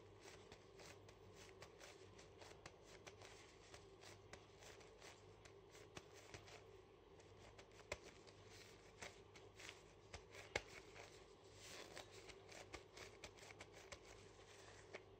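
Faint crinkling of a thin plastic glove and soft squishing as a hand kneads raw minced beef in a glass bowl, with many small irregular clicks and rustles over a low steady hum.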